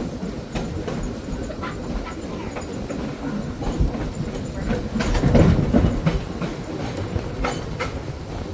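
1926 Wason-built trolley car rolling along the track, heard from on board: a steady rumble of wheels on rails with scattered clicks over the rail joints, swelling louder about five seconds in.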